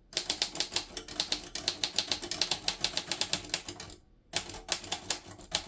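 Manual typewriter being typed fast, about eight keystrokes a second for some four seconds, a short pause, then a few more strokes. The machine sits on a thick wool felt pad, which softens the clack of the keys.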